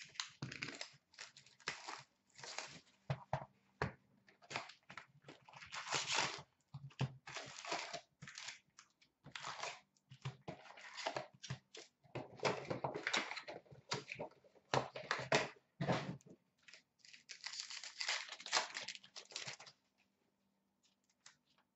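Hockey card box and card packs being torn open and handled: irregular crinkling and tearing of cardboard and pack wrappers in short bursts, stopping shortly before the end.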